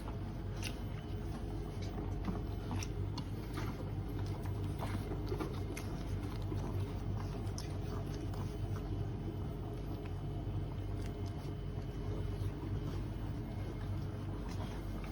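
Dog chewing, small irregular clicks and crunches over a steady low hum.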